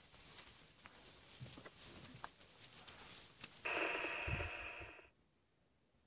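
Dry grass crackling and rustling as a herd of Cape buffalo walks through it, then a louder harsh breathy hiss for about a second and a half, with a low thump in it, that cuts off suddenly.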